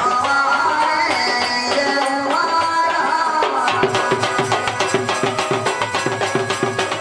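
Live folk music led by a hand-played double-headed barrel drum (dhol), with a melody line over it. About halfway through, the drumming turns into a fast, even run of strokes.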